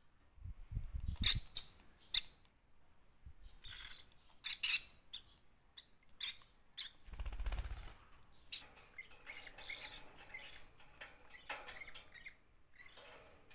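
Small pet parrots chirping in short, irregular calls and clicks, loudest in the first couple of seconds, with a longer rustling burst about seven seconds in and softer twittering later.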